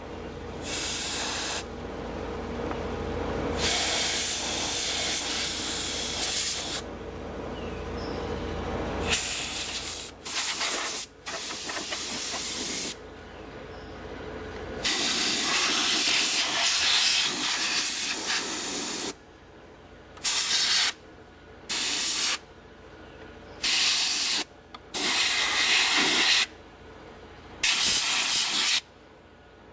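Compressed-air blow gun on an air hose, blowing dirt out of a garden tractor in a string of short and long hissing bursts, about a dozen of them. A low hum runs under the first half and stops about halfway through.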